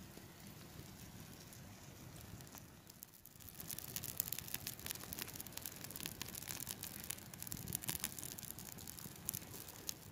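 Wood fire crackling under a grill, with a faint steady hiss; the sharp pops grow louder and more frequent from about four seconds in.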